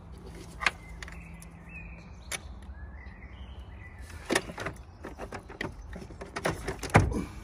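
Car battery being manoeuvred into the engine bay, with scattered knocks and plastic-and-metal clunks as it is lifted and lowered, then a heavy thud near the end as it drops into the battery tray.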